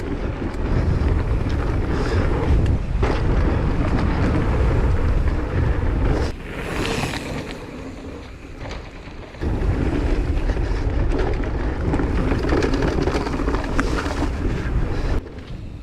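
Raw riding noise of a Décathlon Stilus electric mountain bike, with heavy wind rushing over the microphone. It goes quieter for a few seconds in the middle, then comes back.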